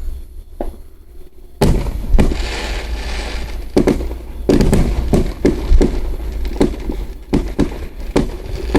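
Fireworks going off. About a second and a half in there is a loud bang followed by a crackling hiss, then a rapid run of sharp bangs, several a second.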